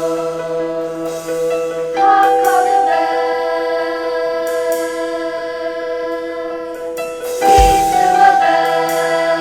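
A school choir singing long held chords. New vocal entries come about two seconds in and again near the end, with a brief low thump just before the second.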